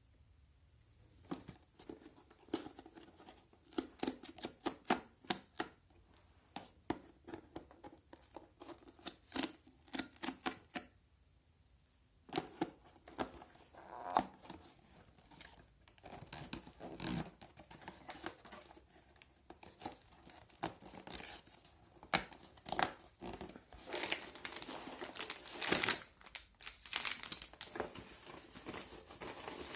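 Toy set packaging being opened by hand: a run of short sharp tearing and crinkling rustles, busier and louder in the second half.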